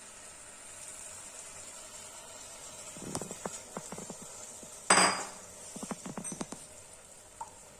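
A metal spoon knocking and scraping against a kadhai while rice-flour batter is stirred into melted jaggery. There is a run of taps about three seconds in, one loud clank just before five seconds, and a quick series of taps soon after.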